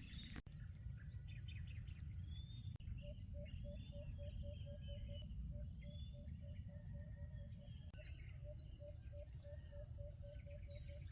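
Crickets or similar insects trilling steadily in a high, pulsing chorus, with faint bird chirps. From about three seconds in, a short low call repeats about three times a second.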